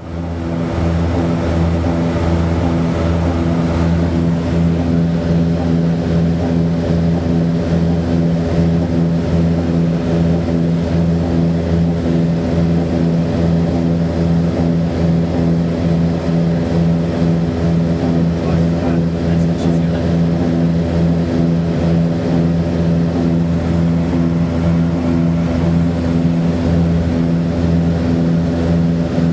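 Cabin drone of a Piper Seminole's twin piston engines and propellers running steadily in flight, a constant low hum with no change in pitch.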